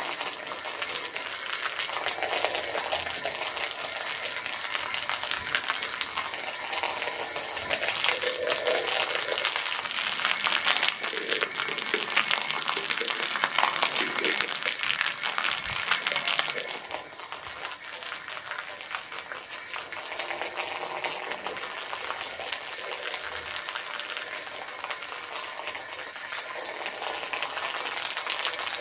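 Wet scrubbing of a soap-foamed carpet: a steady crackling, fizzing hiss that gets quieter about seventeen seconds in.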